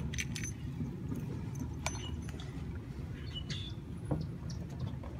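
Scattered small clicks and taps of a plastic door projector light and its wire being handled and pushed into a hole drilled in a car door panel, over a steady low rumble.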